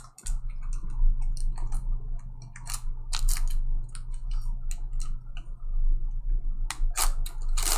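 Irregular light clicks and short crinkly rustles of handling at a desk, over a steady low electrical hum.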